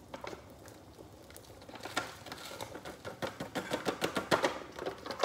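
Plastic food packet being handled and crinkled, a dense run of irregular crackles and clicks starting about two seconds in.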